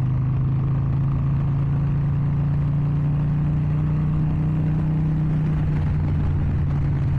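Harley-Davidson XL 883 Iron Sportster's air-cooled 883 cc V-twin running at a steady, even pitch while the bike is ridden, heard from the saddle with its aftermarket exhaust.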